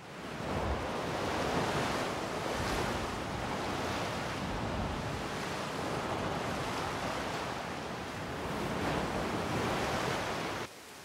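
Ocean surf surging and breaking over boulders on a rocky shore, swelling and easing in waves. It cuts off suddenly near the end.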